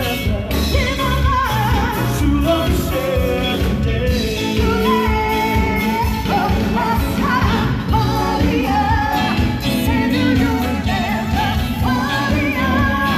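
A pop song with a singer over a full band and a steady beat.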